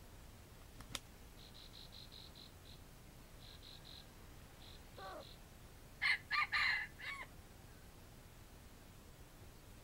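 Red junglefowl rooster crowing once about six seconds in: a short, clipped crow in four quick parts. Faint rhythmic high chirping comes before it.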